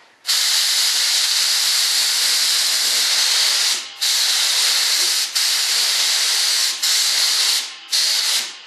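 Compressed-air spray gun hissing steadily as it sprays Partall #10 mold release. The trigger is let off for brief moments a few times, about four seconds in and again near the end.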